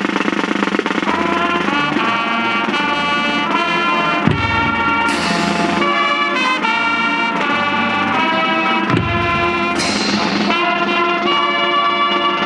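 Music with held chords over a drum beat; a deep drum hit followed by a cymbal crash comes twice, about a third and about three quarters of the way through.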